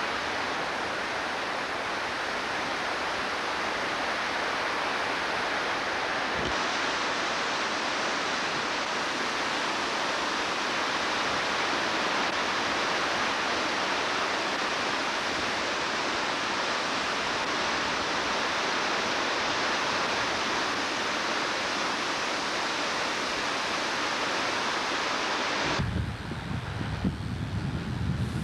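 Floodwaters of Peshastin Creek rushing in a loud, steady roar. Near the end it gives way abruptly to low, gusty wind buffeting on the microphone.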